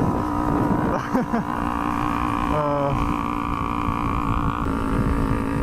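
Small 250 cc parallel-twin motorcycle engines running at a steady cruise, with wind noise on the helmet microphone. A brief pitched sound comes in about two and a half seconds in.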